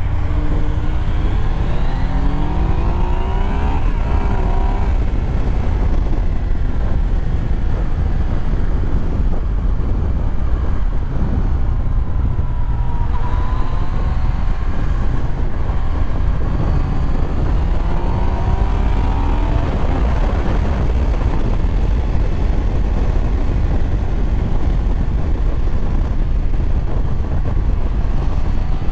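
Yamaha MT-09 motorcycle's three-cylinder engine under way, revs rising through the gears early on and again about two-thirds of the way in, over a steady low rumble of wind and road noise.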